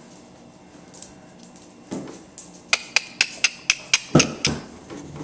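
A quick, even run of about eight sharp ringing clicks, roughly four a second, starting a little past halfway, with a couple of duller thumps among the last ones.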